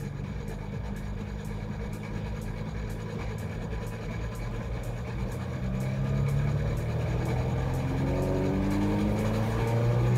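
Car engine revving under throttle in third gear, its pitch climbing steadily and growing louder over the second half toward about 5,000 rpm. The car hardly moves: the rear-wheel centrifugal clutches are loaded against the engaged handbrake. A light regular ticking runs under it about twice a second.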